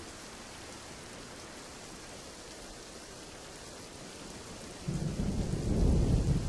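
Steady rain falling, with a low rumble of thunder rising about five seconds in.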